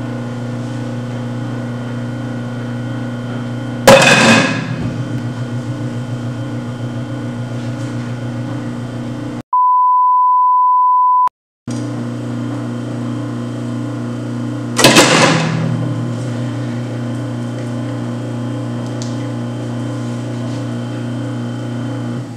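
Garbage disposal motor running with a steady hum, broken twice, about four and about fifteen seconds in, by a loud metallic clang that rings on, as something strikes the metal inside the drain. About ten seconds in, all other sound cuts out for a two-second pure beep, a censor bleep.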